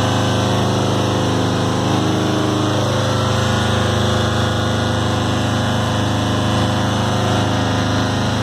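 Suzlon 2.1 MW wind turbine generator running with a loud, steady low hum and several faint steady tones above it, the sound taken for abnormal.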